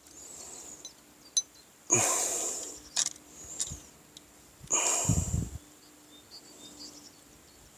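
Two short, sharp breaths through the nose close to the microphone, a little under three seconds apart, with a few faint clicks between them.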